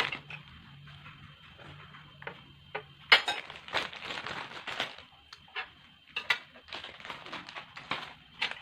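Handling noise at a meal table: a string of sharp clicks, clinks and crinkly rustles, densest about three to five seconds in.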